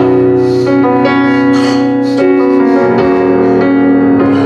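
Keyboard playing held chords, moving to a new chord about two seconds in and again about three seconds in.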